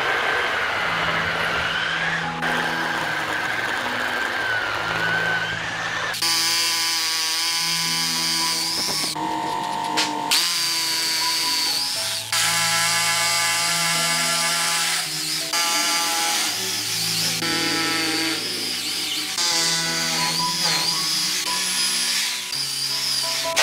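Corded rotary hammer drill boring into a concrete floor, running steadily with a high, slightly wavering whine, over background music with a steady bass line.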